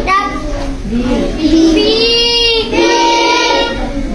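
Young boys reciting from their books together in a sing-song chant, their voices drawing out long held notes with short breaks between phrases.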